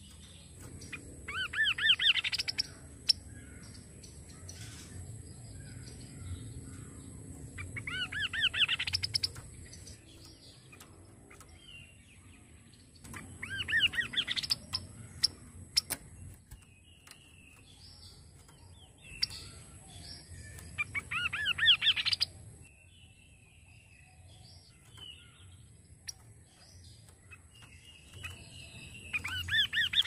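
Kaso-kaso (chestnut-capped babbler) singing in five bursts, each one to three seconds of quick notes sweeping upward, spaced about six seconds apart. Light clicks fall between the bursts.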